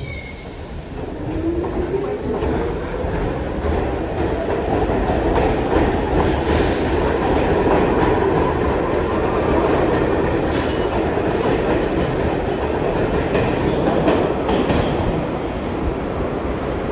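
New York City Subway 1 train pulling away: traction motors whine, rising in pitch over the first few seconds as the train speeds up, over a steady rumble of wheels on rail. Near the end come a few sharp clicks of wheels over rail joints.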